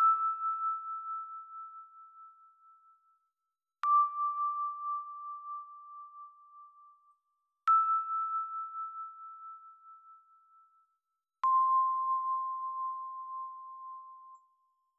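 Four single bell-like musical notes, each struck and left to ring out and fade over about three seconds, with a slight pulsing in the decay; the second note is lower than the first, the third goes back up, and the last is the lowest.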